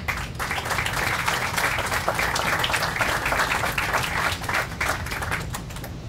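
Audience applauding with many hands clapping at once. It starts just after the beginning and dies away near the end.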